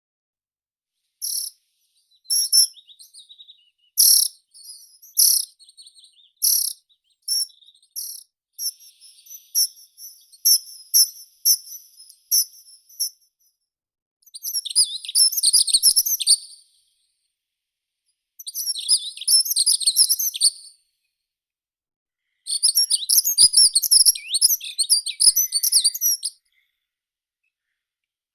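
Meadow songbirds singing: a string of short, sharp, high calls repeated about once a second over the first half, then three long bursts of rapid, jumbled twittering song, each lasting two to four seconds.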